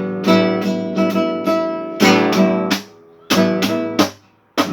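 Acoustic guitar strummed on its open strings without chords, in a rhythm of about two to three strokes a second. It breaks off briefly near the middle and fades out near the end.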